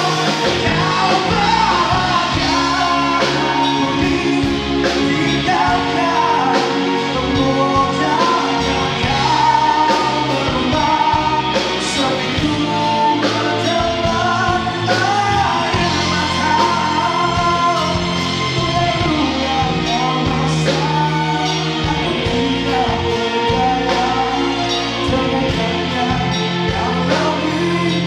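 A male vocalist singing live into a microphone, backed by a band with electric bass guitar and drums. The voice carries a wavering, held melody over steady bass notes and regular drum and cymbal hits.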